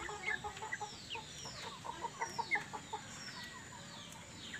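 Birds calling: runs of short, quick notes mixed with high chirps that fall in pitch, repeated many times, strongest in the first three seconds.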